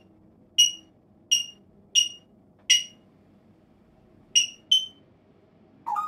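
African grey parrot mimicking an electronic alarm beep: a string of short, loud, high-pitched beeps, four at an even pace, then after a pause two quick ones. At the very end a lower whistle rises briefly.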